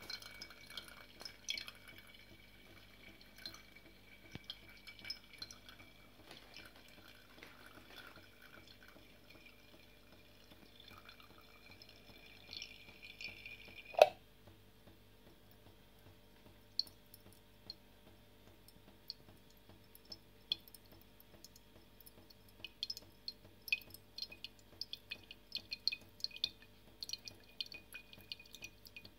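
Distillate dripping through a plastic chute and funnel into glass jars of a fraction collector, faint irregular drops that come faster near the end. One sharp click about halfway through.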